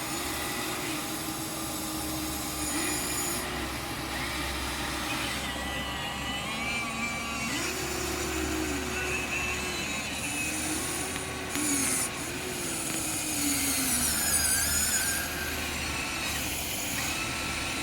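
Small electric motors of a Huina 1593 1/14-scale RC excavator whining as it is worked, each whine rising in pitch as a motor starts, holding, then dropping as it stops, one after another and sometimes overlapping.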